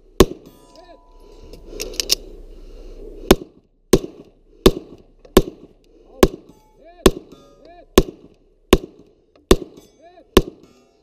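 Pistol being fired about thirteen times. The shots come at an unhurried, steady pace of roughly one every three-quarters of a second after a quick pair about two seconds in.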